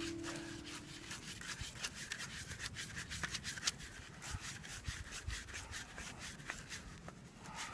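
Faint rubbing and irregular light clicks of a sprinkler fitting being handled as a temporary cover is pushed onto it.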